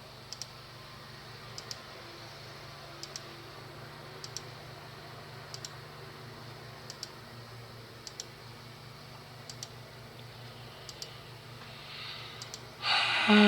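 Computer mouse clicking in quick pairs about every second and a half, over a low steady hum. Near the end a loud whirring sound starts and its pitch dips, then rises.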